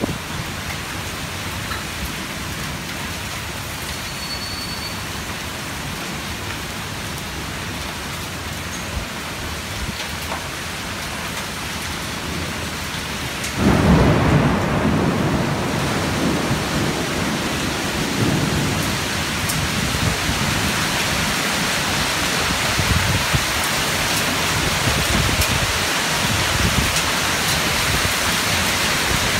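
Heavy downpour of rain hissing steadily. About halfway through, a sudden loud low crash of thunder breaks in, and the rain is louder from then on.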